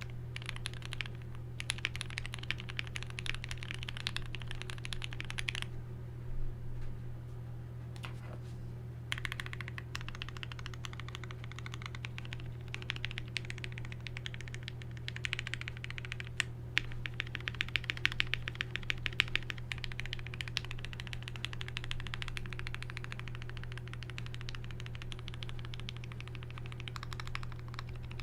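Typing on a modded Tofu65 mechanical keyboard with lubed and filmed Gateron Black Ink linear switches, a brass plate, foam and O-ring mount mods, and GMK Dracula keycaps: fast runs of keystrokes, with a pause of about three seconds near the start and a few louder strokes in the middle. A steady low hum sits underneath.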